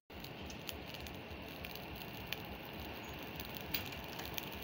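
Charcoal fire giving a few faint crackles and ticks over a steady rushing hiss.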